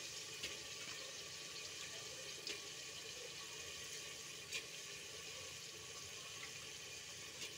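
Onion-tomato masala sizzling steadily in a steel pot under freshly added soaked masoor lentils, a wet, hissing frying sound with a few faint pops.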